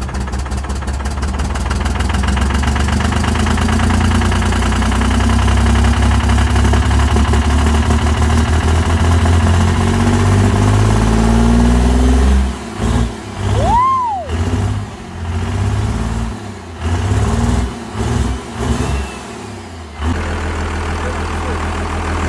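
Compound-turbocharged 12-valve Cummins inline-six diesel running just after its first start. It runs steadily and grows louder over the first few seconds. Past the middle the sound turns choppy with short drop-outs and a brief rising-and-falling whistle, then runs steadily again near the end.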